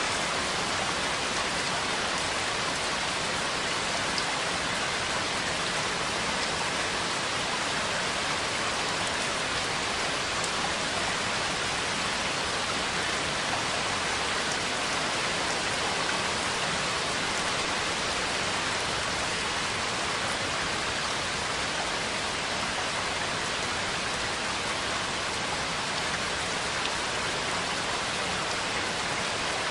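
Steady rainfall: an even hiss of rain pattering on surfaces, with no let-up or change.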